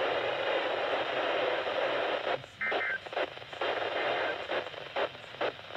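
Radio static from a weakly received broadcast: a steady hiss for about two seconds, then breaking up and cutting in and out, with a short high beep about two and a half seconds in.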